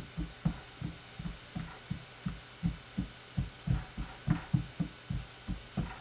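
A quick, uneven run of soft, dull thumps, about two to three a second, from fish-preparation work on a cutting board.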